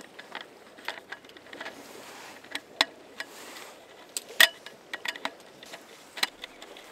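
Irregular light clicks and clatter from the aluminium slats of a folding camp table's roll-up top as it is pressed and fitted onto its metal frame, with a sharper knock about four and a half seconds in.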